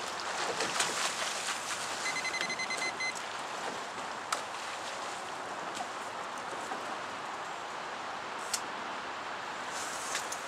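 Steady rushing outdoor noise of wind and water washing along the riverbank as a passing boat's wake reaches the reeds, with a few sharp light ticks and a short high, pulsing tone about two seconds in.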